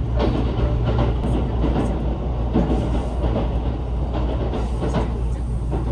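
JR Central 373 series electric train running, heard from inside the carriage: a steady low rumble with irregular clicks and knocks of the wheels on the track.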